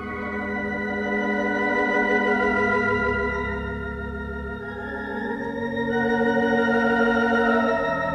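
A 3/10 Hilsdon unit theatre organ plays slow, sustained chords with a wavering tremulant. It swells louder twice as the harmony changes. The organ sounds bright in a reverberant, hard-surfaced auditorium.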